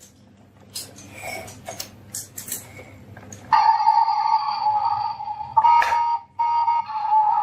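Marbles clicking and rattling along a marble run, then a loud, steady high tone that starts suddenly halfway through, drops out for a moment and resumes.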